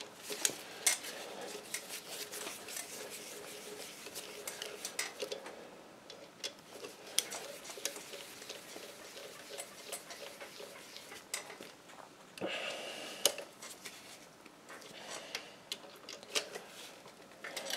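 Speed brace wrench and socket turning down connecting-rod cap bolts on a diesel engine: scattered light metallic clicks and clinks of the tool on the bolts, with a brief louder scrape about two-thirds of the way through.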